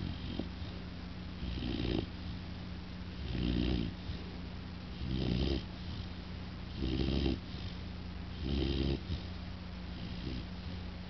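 American bulldog puppy snoring loudly in its sleep: a rough snore on each breath, about every one and a half to two seconds, six in a row with the last one weaker.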